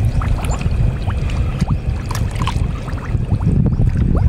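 Shallow muddy water sloshing and splashing as a hand gropes through mud under it, with many small pops and gurgles over a steady low rumble.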